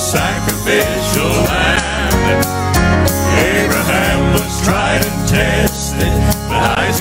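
Southern gospel male quartet singing in harmony over instrumental accompaniment with a steady beat.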